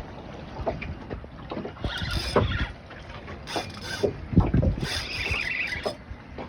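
Wind gusting across the microphone aboard a small boat, with water slapping the hull, in irregular gusts.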